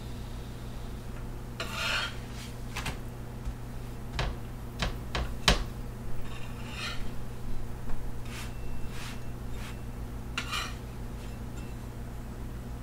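Metal spatula scraping across a flat griddle (tawa) and clicking against it as it is worked under a dhal puri to lift and turn it: a few short scrapes, with a quick run of sharp taps midway. A steady low hum runs underneath.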